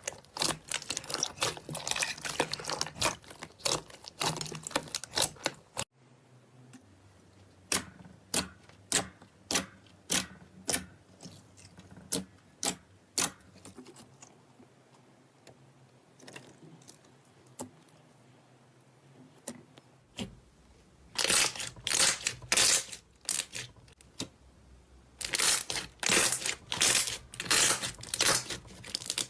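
Slime being squeezed and poked, making crisp crackling clicks and pops. Dense runs of crackles at the start and again near the end, with a sudden cut about six seconds in and sparse single pops in between.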